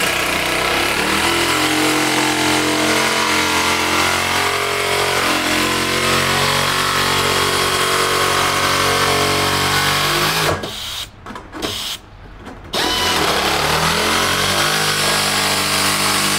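Handheld electric sheet-metal cutter running under load as it cuts sheet steel along a marked line, the motor's pitch shifting slightly with the load. It stops for about two seconds roughly ten and a half seconds in, then cuts on.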